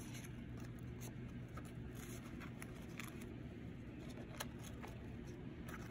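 Faint handling of paper stationery: scattered light rustles and taps over a steady low hum.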